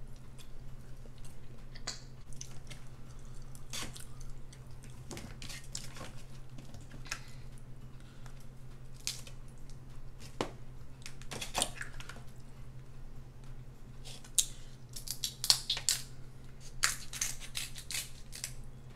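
Close-miked eating of king crab: scattered sharp cracks and clicks of crab shell being broken and picked at, with wet chewing, coming thicker in the last few seconds. A steady low hum runs underneath.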